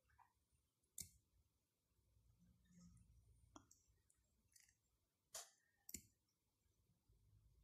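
Near silence with a handful of faint, sharp clicks from hands handling yarn and a small metal crafting tool.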